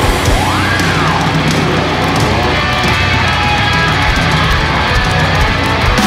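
A hard rock band playing live at full volume: a driving drum kit and electric guitars.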